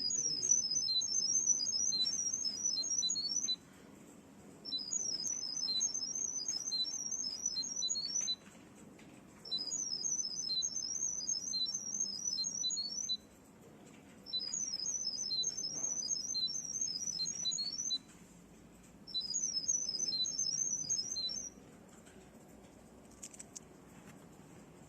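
Electronic doorbell chirping a fast run of high-pitched beeps for about three and a half seconds, five times over with short pauses between.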